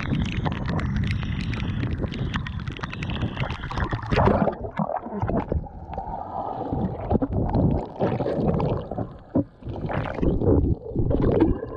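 Squall wind and rain lashing the choppy sea surface at a camera held at the waterline. About four and a half seconds in, the camera goes under: the sound turns muffled and dull, with gurgling, bubbling and irregular thumps of water against the housing.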